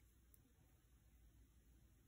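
Near silence: room tone, with one faint click from the Chimera clone balisong about a third of a second in.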